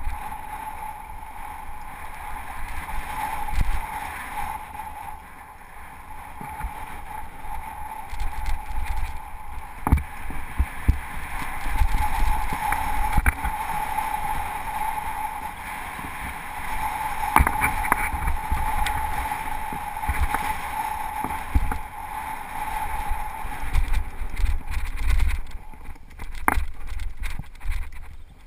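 Mountain bike riding fast down rough singletrack: wind rumbles on the microphone while the tyres and frame rattle over loose stones, with sharp knocks from bumps. Over most of the ride a steady buzzing tone comes and goes, then drops out near the end.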